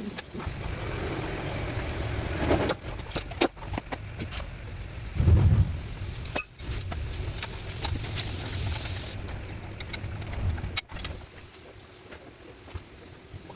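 Scattered metallic clinks and knocks over a low steady rumble, with one louder thump about halfway through; the rumble drops away near the end.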